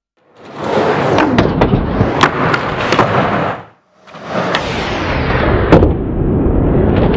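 Skateboard rolling on a ramp, with several sharp clacks of the board. It comes in two passes, each fading in and out.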